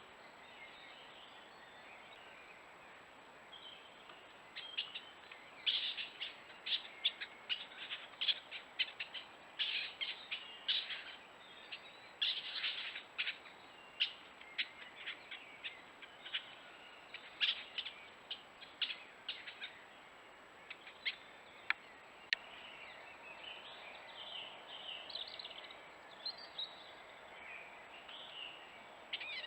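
Stone martens giving a long, rapid series of short, sharp, high-pitched squeaks and chirps. Softer warbling chirps follow near the end.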